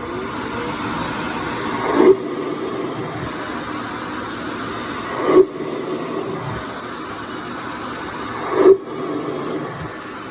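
Samsung Jet Clean Station suction running as it auto-empties a cordless stick vacuum's dust bin: a loud, steady rush of air, with a sharp surge about every three seconds.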